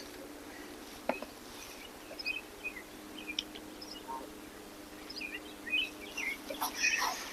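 Birds chirping in short, scattered calls over a faint steady hum, with a single sharp click about a second in.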